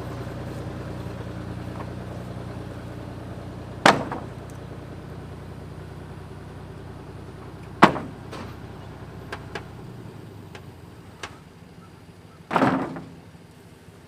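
An engine idling steadily, cutting out about ten seconds in, with three loud sharp knocks about four seconds apart and a few lighter clicks.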